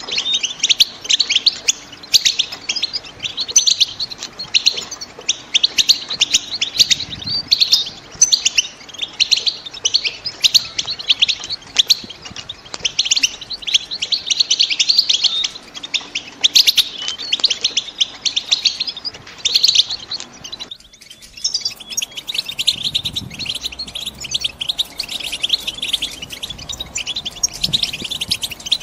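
European goldfinch hens twittering: a fast, unbroken stream of high chirps and trills, the chatter of females ready to breed that is used to set a male goldfinch singing. About two-thirds of the way through, the chatter briefly dips and then carries on with a slightly different tone.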